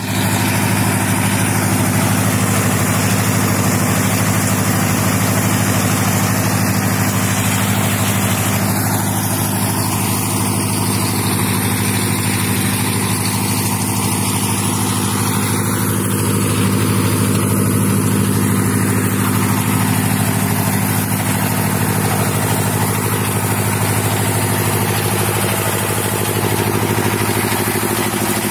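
Engine of a hydraulic auger drilling rig running steadily at constant speed, a loud even drone with no change in pace.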